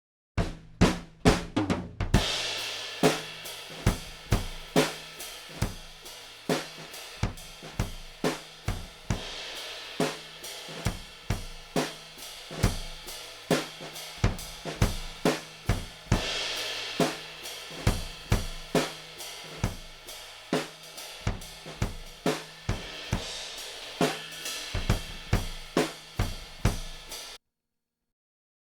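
Acoustic drum kit playing a steady beat of kick, snare and hi-hat, with cymbal crashes. It opens with a quick fill into a crash about two seconds in and cuts off suddenly near the end.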